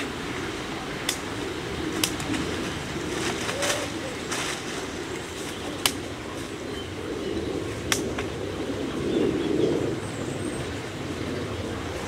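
A small mountain stream burbling steadily, its low water sound swelling briefly near the end. Several sharp clicks and a few rustles a second or two apart come from recording gear being handled close to the microphone.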